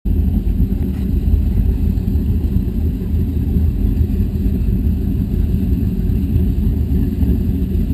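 Twin MerCruiser HP500 V8 engines of a Fountain 35 Lightning powerboat idling as the boat creeps along, a steady low rumble.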